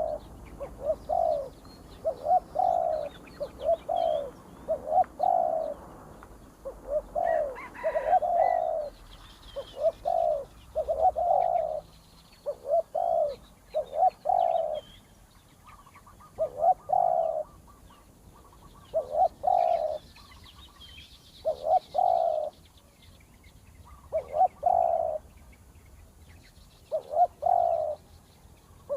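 Spotted dove cooing: soft repeated coos in short phrases every couple of seconds, with faint chirps of small birds behind.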